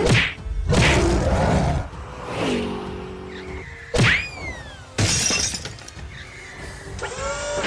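Cartoon sound effects over background music: sudden crashes near the start, a falling whistle about four seconds in, and quick rising chirps near the end.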